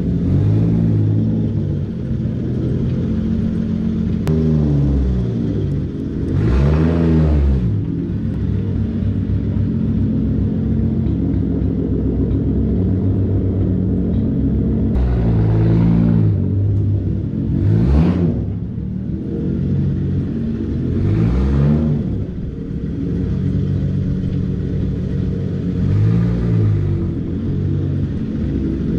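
Mk4 Toyota Supra's straight-six engine running at idle, revved about seven times, each rev rising and falling back, with only the exhaust heard and no clutch chatter.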